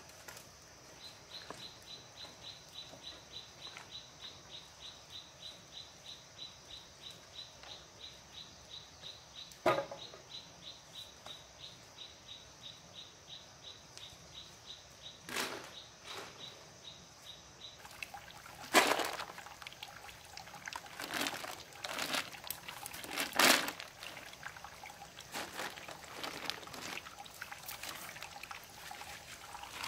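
A high, even chirp repeats about three times a second through the first half. It gives way to sharp knocks and rustles of handling, loudest twice, over water trickling along a bamboo pipe.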